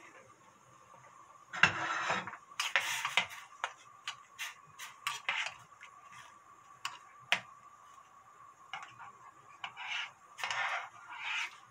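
A spoon scraping and stirring in a ceramic pot of broth, with sharp clicks each time it knocks the pot. It is dissolving soybean paste (doenjang) into the stock for the stew.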